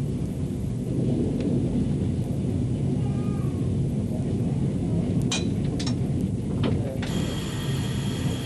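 Train rolling slowly along the track, heard from the driver's cab: a steady low rumble with scattered sharp clicks and knocks. About seven seconds in, a high-pitched squeal sets in and holds.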